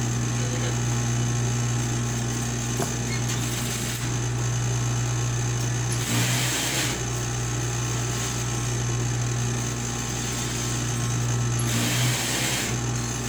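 Electric sewing machine motor humming steadily, with two short hissing bursts about six and twelve seconds in.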